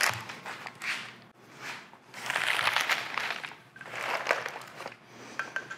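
Handling noise from heavy steel lathe parts being shifted on a workbench: several bouts of rustling and crinkling from the brown paper under them, with light scrapes and knocks of metal on the bench.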